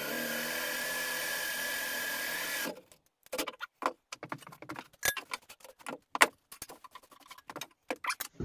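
Cordless drill with a step drill bit boring a hole through a small part, running steadily with a steady whine and stopping about three seconds in. After that come scattered clicks and clinks as the drilled part is handled and the drill is set down.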